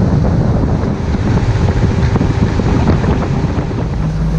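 Wind buffeting the microphone of a camera on a boat running at speed across calm water, with the rush of the water and the boat's motor beneath it. About four seconds in the sound changes to a steadier, even engine hum.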